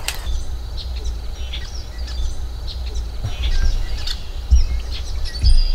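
Small birds chirping in short, scattered calls over a steady low rumble, with two dull thumps about four and a half and five and a half seconds in.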